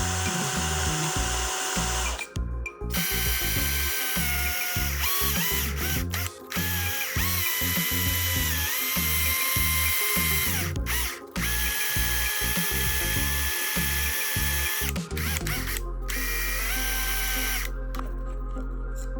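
Small electric power tool running in stretches, its whine dipping and recovering in pitch as it takes load, with several brief stops, over background music.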